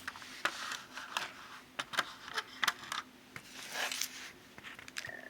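Scattered light clicks and taps from handling a plastic scale model car, with a brief rustle about four seconds in.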